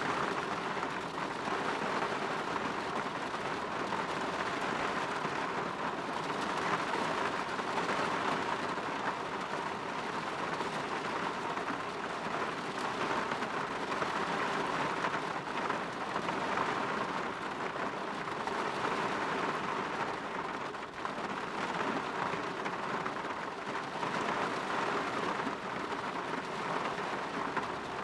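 Steady rain falling against a window pane, an even hiss that swells and eases slightly.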